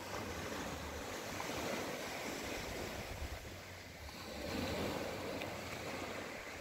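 Gentle surf washing onto a sandy beach, a steady hiss that swells twice, with wind buffeting the microphone.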